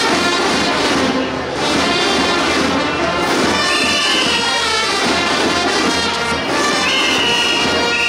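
Marching band playing, with snare drums and pitched instruments. A leader's whistle sounds twice in steady blasts, a short one about four seconds in and a longer one near the end.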